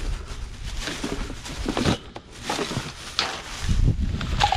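Rummaging through trash: irregular rustling and clattering of handled objects, with several short knocks.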